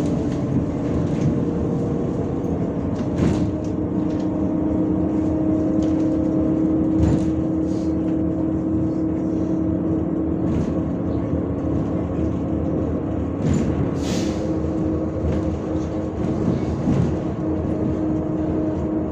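MAZ-105 articulated city bus under way, heard from aboard: steady engine and drivetrain hum with a constant whine, and occasional knocks and rattles from the body.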